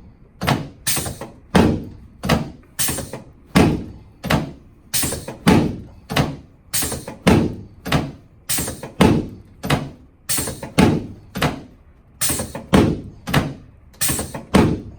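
A long, steady series of sharp thumps, about one and a half a second, from a chiropractic SI-joint adjustment on the treatment table.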